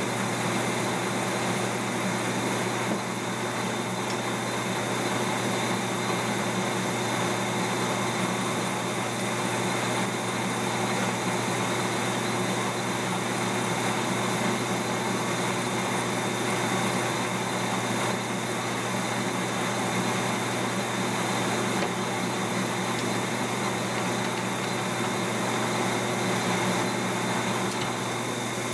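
Metal lathe running steadily, its chuck spinning a bolt while the cutting tool machines off the bolt head, a continuous even machine noise with a few steady tones.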